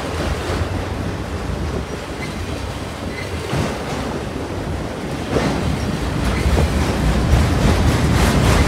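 Union Pacific freight train of autorack cars rolling past close by: a steady rumble and rush of steel wheels on the rails, growing louder from about five seconds in, with a few clanks.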